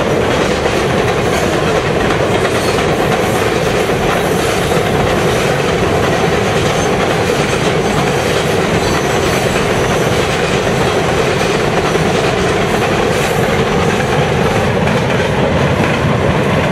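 Freight cars rolling across a steel girder trestle bridge: a steady, loud rumble and clatter of wheels on the rails.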